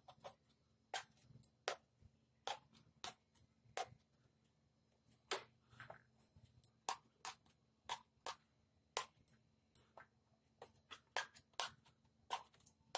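A kitchen knife stabbing holes into raw green brinjals and the brinjals being handled over a steel pot: a string of faint, short clicks and pops, irregular, about two a second.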